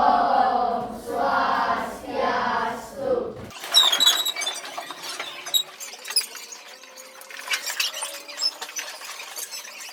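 A group of children singing together, cut off abruptly after about three and a half seconds. It is followed by quieter classroom noise with scattered small clicks and short high squeaks.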